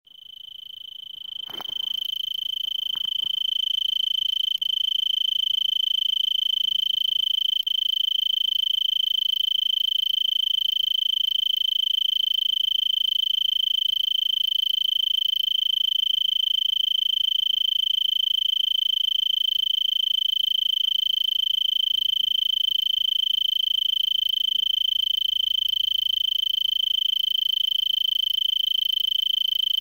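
A male Arizona tree cricket stridulating: one continuous, steady high-pitched trill that builds to full level over the first few seconds and then holds unbroken.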